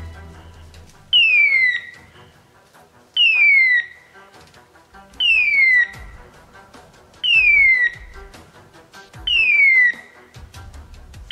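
Electronic beeper collar on a hunting dog giving a falling, hawk-like whistle cry exactly every two seconds, five times. This is the point-mode signal such collars typically give when the dog stands still on point. Faint low thuds come between the cries.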